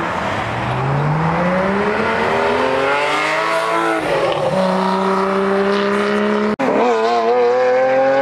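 Porsche 911's flat-six accelerating hard, its pitch climbing steadily for a few seconds, then dropping at an upshift about four seconds in and pulling on. After a break near the end, another sports car's engine rises in pitch as it accelerates.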